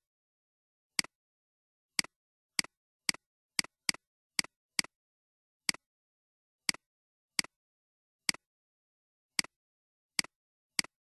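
Computer mouse clicking, about fifteen single sharp clicks at uneven intervals, with dead silence between them.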